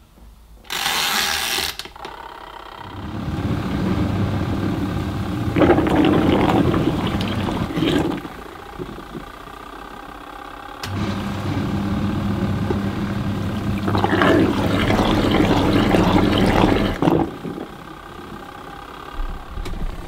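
Leisurewize collapsible portable washing machine's wash motor running with a low hum and water sloshing, in its reverse action. It runs for about six seconds, pauses for about two, runs the other way for about six, and pauses again near the end. About a second in there is a brief whirr as the mechanical timer dial is turned.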